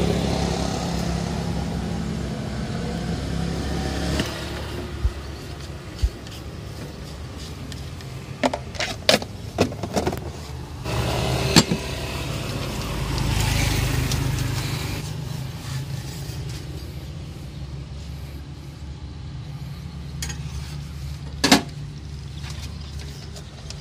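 Road traffic going by: a steady engine rumble that swells as vehicles pass, about 13 to 14 seconds in. Several sharp clicks and taps come about 8 to 12 seconds in, and one more near the end.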